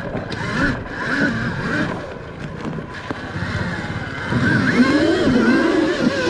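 Dirt bike motor revving as it is ridden over a jump, its pitch rising and falling, getting louder about two-thirds of the way through.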